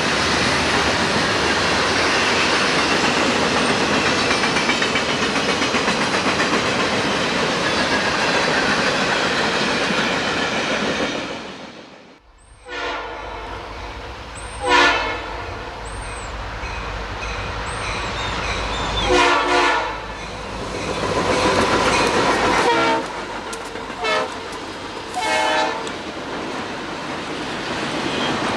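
Diesel-hauled freight train's cars rolling past with steady wheel and rail noise. After a sudden cut, a diesel locomotive rumbles in the distance and blows several blasts on its multi-tone air horn as it approaches.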